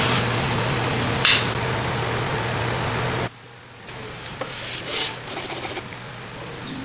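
Steel knife blade being ground on a powered grinder: a steady motor hum under a grinding hiss. It cuts off suddenly about three seconds in, giving way to quieter, irregular rubbing and scraping strokes of the blade being worked by hand.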